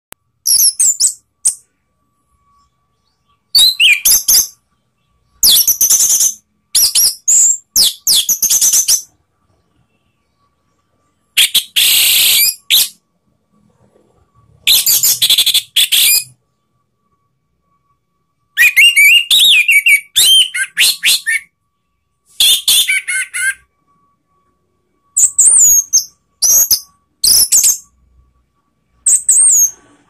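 Orange-headed thrush (anis merah) singing: loud, high-pitched, warbled phrases of one to three seconds with quick pitch glides, broken by gaps of about a second.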